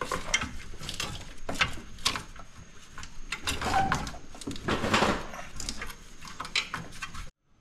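Irregular metallic clinks, knocks and scrapes as a car's exhaust manifold and the engine-bay parts around it are handled and worked loose by hand.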